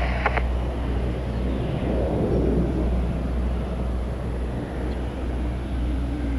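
Jet airliner engines making a steady low rumble, with a faint falling sweep in pitch about two seconds in.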